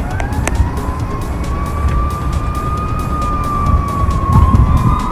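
An emergency-vehicle siren wailing, its pitch slowly rising and falling, with a second siren joining about four seconds in. Heavy wind rumbles on the microphone underneath.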